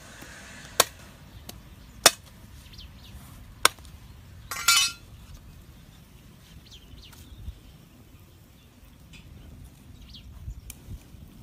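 A metal knife blade striking fish on a concrete floor: three sharp clinks about a second and a half apart, then a short clattering scrape.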